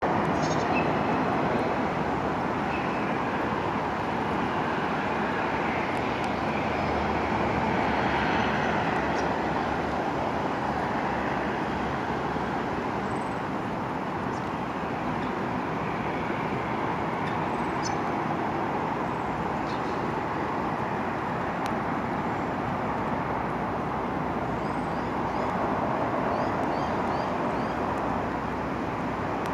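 Steady outdoor background noise, an even wash with no pauses, with a few faint short high chirps near the end.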